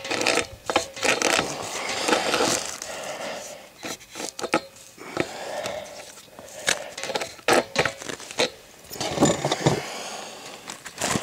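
Pipe wrench turning a taped threaded pipe joint into a brass fitting: irregular metal clicks and scraping as the wrench jaws bite and turn on the pipe.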